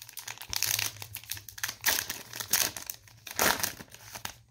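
A hockey trading-card pack's wrapper being torn open and crinkled by hand, in irregular crackling bursts.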